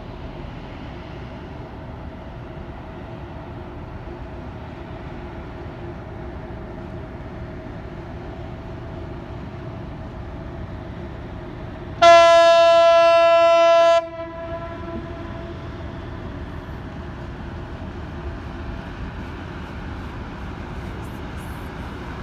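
Cargo ship's horn sounding one long blast of about two seconds, about halfway through, over a steady low hum.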